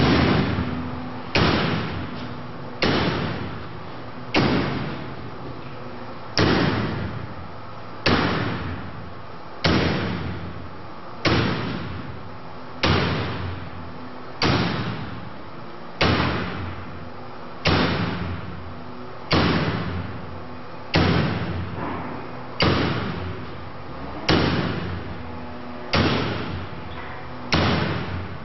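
An axe repeatedly striking a woven metal wire drapery in a forced-entry test, about eighteen heavy blows, one every second and a half or so. Each blow is a sharp crash with an echoing tail.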